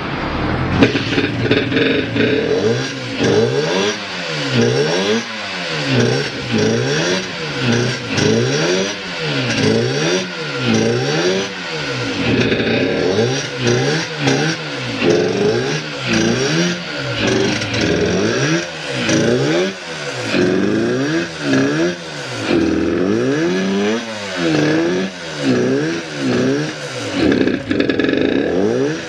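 Suzuki RG250 Gamma two-stroke twin engine being blipped over and over, the revs rising and falling about once every second and a bit. The engine pulls cleanly with no abnormal noises, as the seller states.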